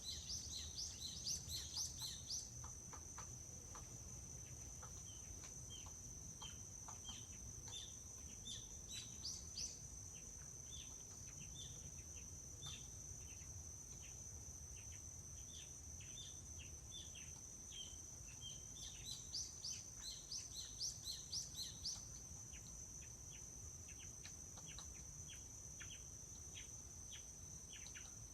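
Forest ambience: small birds chirping in quick runs of short notes, busiest at the start and again about two-thirds of the way in, over a steady high-pitched insect drone and a faint low rumble.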